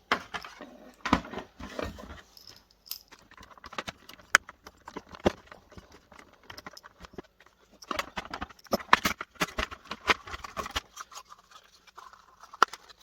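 Plastic and metal parts of a dismantled video projector being handled and set down on a work surface: irregular clicks, knocks and rattles, busiest in a run of close clatter about two-thirds of the way through.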